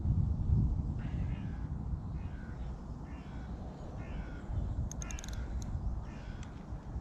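Crows cawing: a series of short, harsh calls about once a second, over a steady low rumble.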